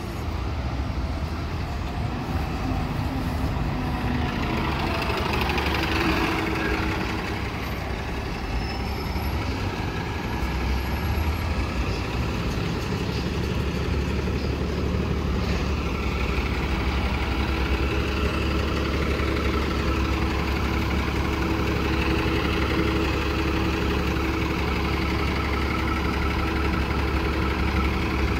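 A 2019 Nova Bus LFS city bus drives past and pulls in to a stop. Its diesel engine then idles steadily at the curb with a low hum.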